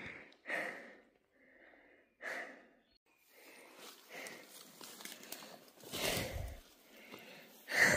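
A man breathing out hard twice early on, then a longer stretch of rustling as he moves through forest undergrowth, with a dull thump about six seconds in.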